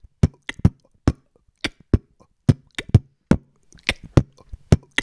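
Beatboxing into a microphone: a quick, irregular string of sharp mouth-made percussion hits, some with a low thump and others thin and clicky, about three to four a second.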